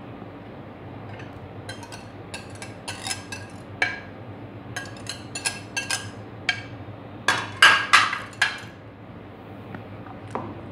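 A metal wire whisk knocking and scraping against a plate and a plastic bowl as chopped vegetables are scraped off the plate. It makes a run of sharp clinks and taps, loudest about eight seconds in, with one last tap near the end.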